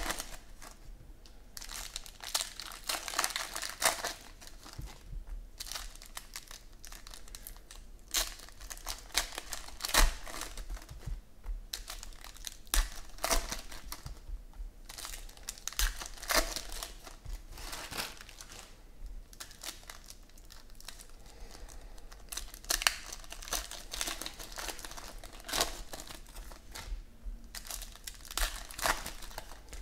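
Shiny foil wrappers of Panini Certified football card packs crinkling and tearing as they are ripped open by hand, in irregular bursts of crackle with sharp rips.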